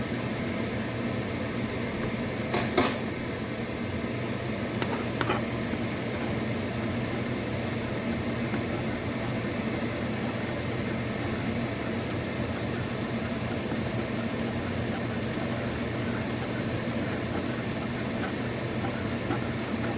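Microwave oven running with a steady hum, with a sharp click about three seconds in and two faint clicks a couple of seconds later.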